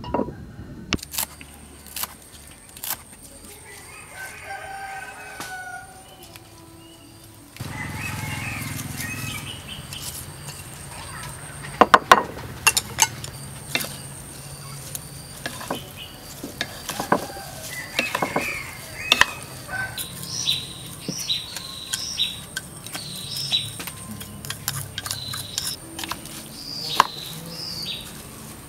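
Wooden chopsticks tossing shredded papaya salad in a wooden bowl, with sharp knocks of the sticks against the bowl, loudest about twelve seconds in. A rooster crows in the background, and small birds chirp repeatedly near the end.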